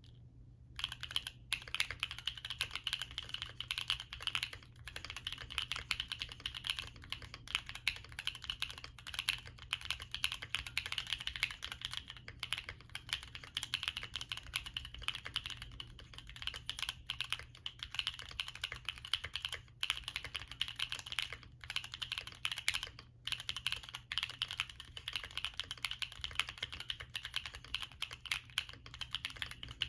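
Steady fast typing on a Bakeneko60 mechanical keyboard with stock Gateron Baby Raccoon linear switches, an FR4 plate, a polyfill-filled case and double-shot PBT keycaps. It is a dense run of keystroke clacks that starts about a second in, with a few brief pauses.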